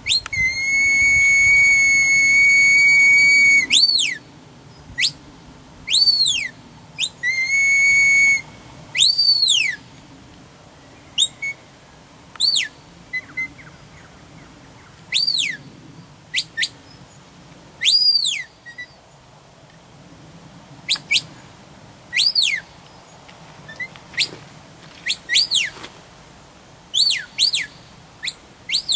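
Sheepdog handler's whistle commands directing a herding dog. A long steady whistle is held about three and a half seconds, a shorter steady one follows, then a string of quick rising-and-falling whistles, some in pairs.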